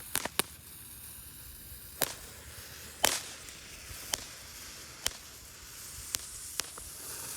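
Small flashing-fountain firework burning with a faint hiss and sharp pops or cracks roughly once a second.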